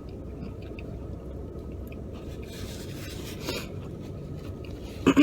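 A person chewing a mouthful of biscuit, with faint small mouth clicks, over a steady low rumble.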